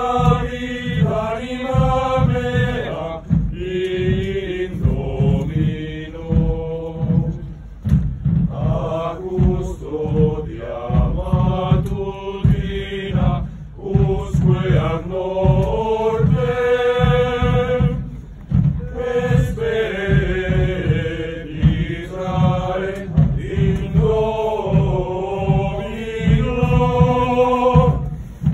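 A group of men's voices chanting a slow religious hymn in unison as they walk, with long held notes, sung in phrases separated by short breaks.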